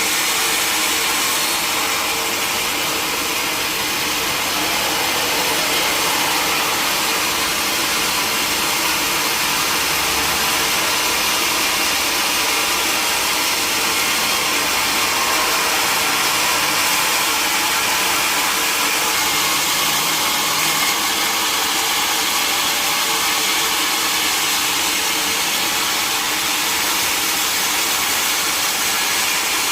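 Sawmill saw running steadily: a constant whirring noise with a faint steady hum and no pauses.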